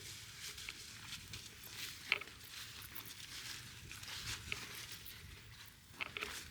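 Footsteps on a hiking trail: irregular crunching steps, with a sharp click about two seconds in.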